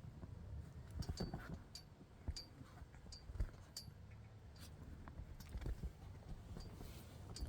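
A chihuahua puppy chewing and gnawing on a small pair of nippers: irregular clicks, taps and light clinks, several a second at times.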